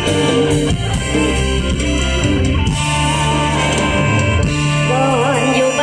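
Live Thai luk thung band music from a concert stage, with electric guitar, bass and drum kit. A melody line with vibrato comes in near the end.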